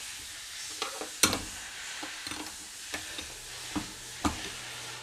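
9/16 wrench tightening a jam nut against the rod end on a quarter midget shock shaft: a few short metal clicks and knocks, the sharpest just over a second in, over a low steady hiss.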